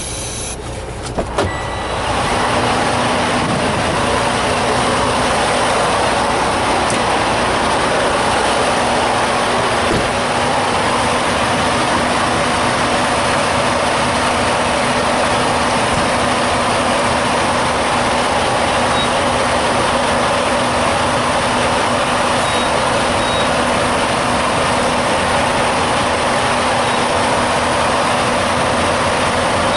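A truck running steadily, a constant wash of engine and running noise with a low hum, starting about two seconds in after a few clicks.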